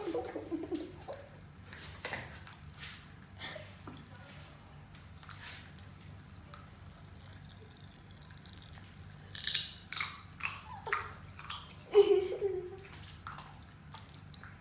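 Wet mouth clicks and smacks from sucking on sour candy, coming irregularly, with a louder run of smacks about nine to eleven seconds in and a brief voiced grunt around twelve seconds.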